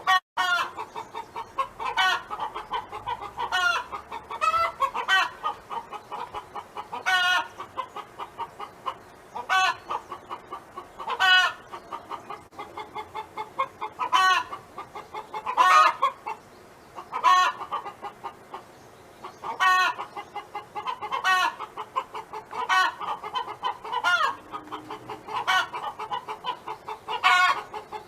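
A domestic hen clucking in quick runs of short clucks, broken every second or two by a louder, drawn-out call.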